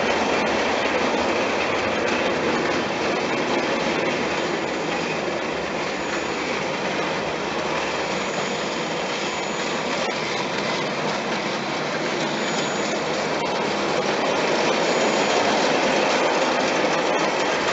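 Märklin gauge 1 HR Pacific tinplate model locomotive and two tinplate coaches running along tinplate track: a steady, dense running noise of wheels and mechanism on the rails, a little louder near the end.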